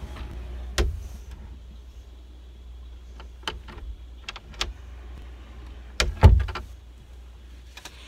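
Scattered sharp knocks and taps, about seven in all, the loudest pair about six seconds in, over a steady low hum.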